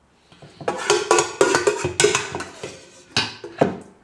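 Metal serving spoon knocking and scraping against a large metal cooking pot as chicken curry is spooned out, a quick run of clanks with the pot ringing, then two separate sharper knocks near the end.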